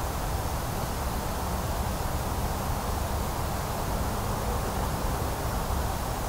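Steady outdoor background noise: an even hiss with a low rumble underneath and no distinct sounds standing out.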